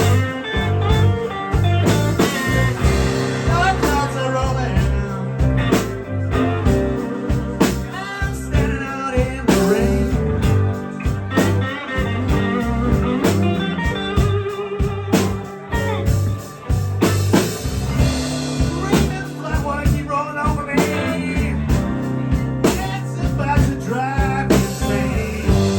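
Live blues band playing a slow blues: electric guitar lead with bent, wavering notes over bass and drum kit.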